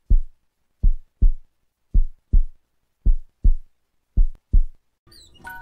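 Heartbeat sound effect: low double thumps in a lub-dub pattern, about one pair a second, four pairs in all. Near the end, soft music with chiming notes comes in.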